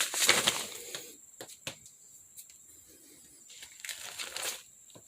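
Old dry newspaper rustling and crinkling as it is handled and brushed off, in two spells with a few light clicks between.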